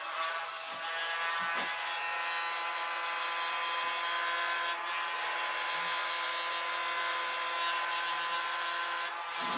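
Small handheld electric mini blower running steadily, a motor whine made of several steady tones with air rushing through its nozzle, switched off near the end.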